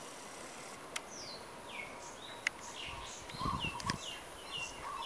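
A bird calling over and over with short downward-sliding whistles, coming faster and more regularly in the second half, over a high insect buzz that stops under a second in. A few light clicks and a short low rumble of handling on the microphone.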